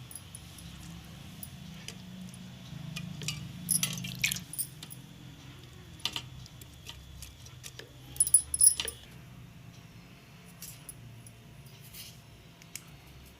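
Metal kitchen utensils clinking and scraping against cookware in a few sharp strikes, the loudest about four seconds in and again near eight to nine seconds, over a low steady hum.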